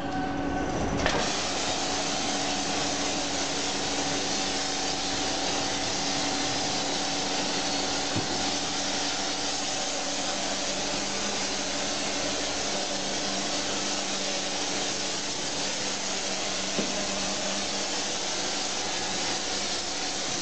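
Motorised disinfectant sprayer running: an even hiss from the spray lance over a steady motor hum, starting about a second in.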